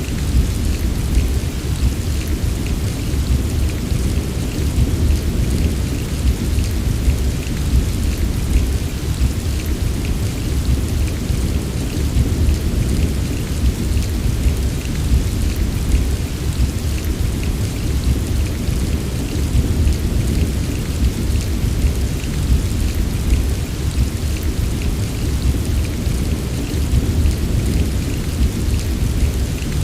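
Heavy rain falling steadily, with fine drop patter on top and a continuous deep rumble underneath.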